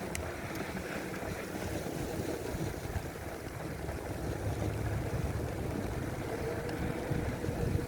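Wind buffeting the microphone over the rumble of a bicycle riding through snowy city streets. A steady hum comes in about six seconds in.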